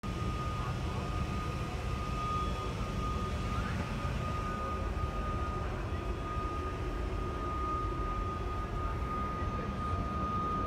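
Steady cabin noise inside a parked Embraer E190-E2 with its systems running: a low rumble with a thin constant whine on top.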